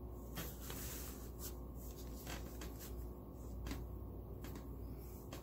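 Fine-tip Sharpie marker scratching on hot-press watercolor paper in a dozen or so short, separate strokes as small shapes are drawn.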